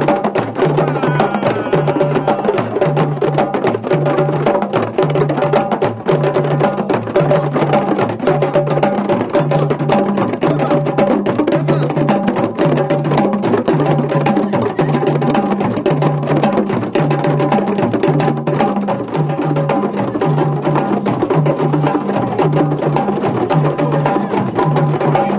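Background music with a steady percussive beat, a low drum-like pattern repeating evenly under held tones.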